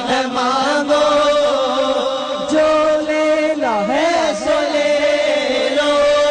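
Wordless naat chanting: a voice draws out a long ornamented melodic line over a steady held drone, with sweeping rises and falls in pitch about four seconds in.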